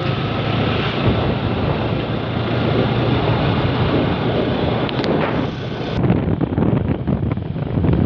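Wind buffeting the microphone of a moving vehicle, over a steady low engine hum. The wind gets choppier about six seconds in.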